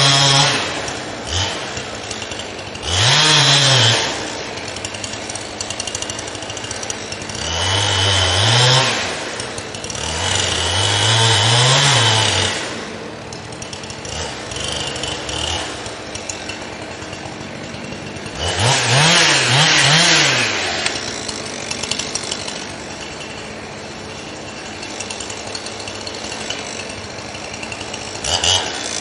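Gas chainsaw revved up to full throttle about five times, each time for a second or two, and dropping back to a lower running speed in between, as it cuts wood.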